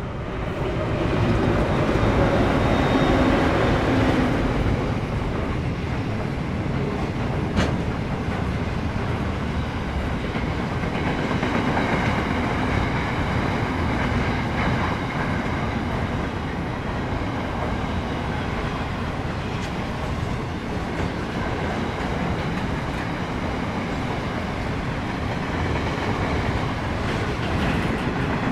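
Pacific National freight diesel locomotives pass close by, loudest in the first few seconds, then a long train of steel wagons rolls past with a steady clatter of wheels over the rails. There is one sharp clank about seven and a half seconds in.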